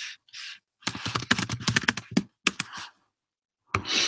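Typing on a computer keyboard: a fast run of keystroke clicks about a second in, lasting some two seconds, then a short burst of noise near the end.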